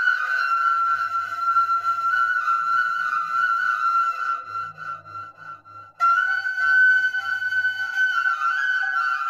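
Flute music playing slow, long-held notes. It fades out about five seconds in and comes back abruptly a second later.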